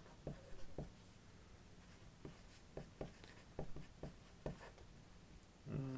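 Felt-tip marker writing on a sheet of paper laid on a desk: faint, short, irregular strokes and taps of the tip as letters are formed.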